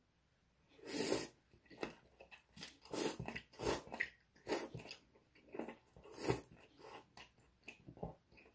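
A person slurping and chewing spicy Korean ramyeon noodles: a string of short slurps and chews, about one a second.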